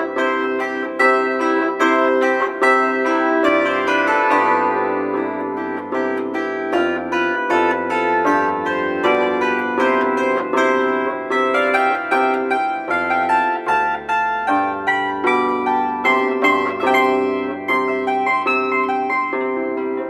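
Solo plucked string instrument playing fast variations on a Ukrainian folk melody: many quick plucked notes over a low bass line that shifts every few seconds.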